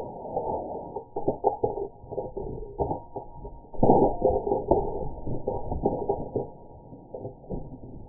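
Slowed-down, pitched-down soundtrack of slow-motion mousetrap footage: irregular deep, muffled rumbles and knocks, loudest about four seconds in.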